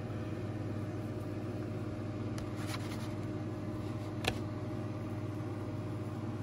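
Steady low motor hum, like a running appliance, with a few faint light crackles and one sharp click about four seconds in.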